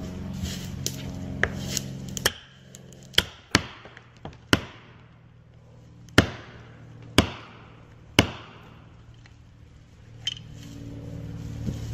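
A felling wedge being hammered into the back cut of a tree: a series of sharp, ringing blows roughly a second apart. A chainsaw idles for the first two seconds, stops, and idles again near the end.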